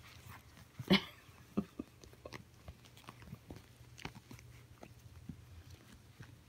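Chihuahua puppies playing and mouthing plush toys: scattered small taps, scuffles and chewing sounds, with one louder click about a second in.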